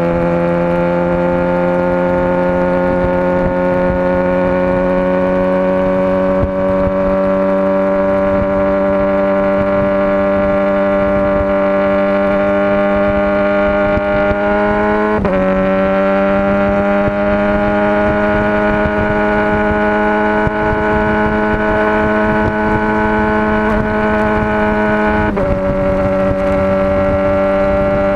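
Motorcycle engine running under steady power, its note slowly climbing in pitch, with two brief sharp dips in pitch about halfway through and near the end.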